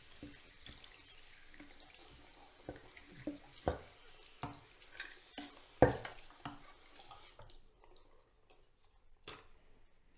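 Bathroom tap running into the sink while a soap dispenser is handled and rinsed under it, with a few knocks of the dispenser against the basin, the loudest about six seconds in. The running water stops about three-quarters of the way through, leaving a single click near the end.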